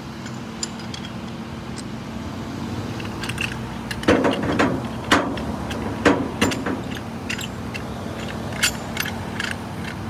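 A vehicle engine idling steadily, joined from about four seconds in by a run of sharp metallic clanks and jingles from chain and rigging hardware being handled.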